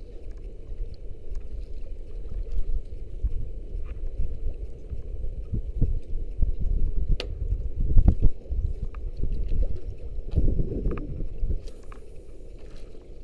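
Uneven low rumble of wind and water around a small fishing boat, swelling and easing, with a few faint clicks.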